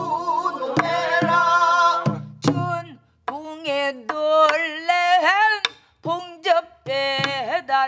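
Korean Namdo folk singing with buk barrel-drum strokes. Voices sing together for about the first two seconds. Then one woman's voice carries on alone with sliding, shaking pitch, broken by short breaths and a few sparse drum beats.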